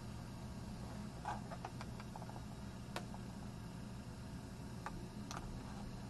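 Faint steady low hum and hiss with a few small, scattered clicks.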